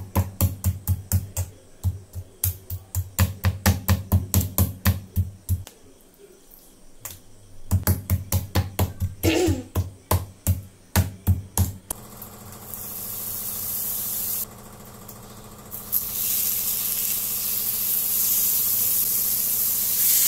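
Marinated chicken breast being pounded flat on a wooden chopping board with a metal tool: quick, even thuds about four a second, in two runs with a short pause between. About twelve seconds in, the chicken pieces sizzle steadily on a hot grill pan.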